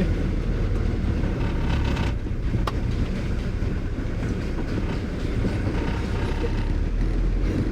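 Steady low rumble of a vehicle driving, engine and road noise together, with one sharp click a little under three seconds in.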